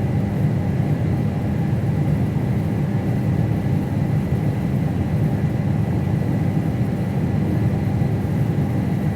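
Combine harvester running steadily under way, a low even drone of engine and machinery with a faint steady high whine over it.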